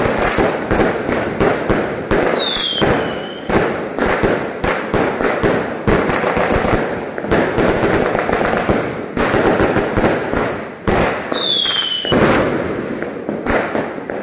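Aerial fireworks bursting overhead in a dense, continuous run of bangs and crackling. Twice a whistle falls in pitch over it, about two seconds in and again about eleven seconds in.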